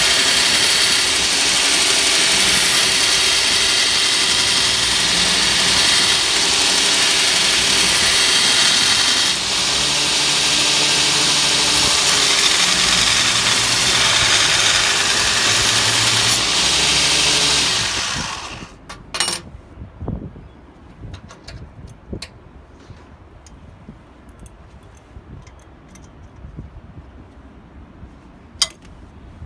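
Home-made belt grinder driven by an angle grinder, running at full speed with a loud, steady whine and hiss, then switched off about two-thirds of the way through and winding down. A few sharp clicks and knocks follow in the quiet.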